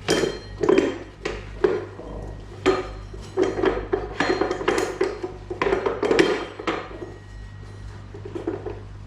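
Metal parts clinking and knocking in irregular sharp strikes as diamond-tip blade segments are fitted onto a concrete floor grinder's head.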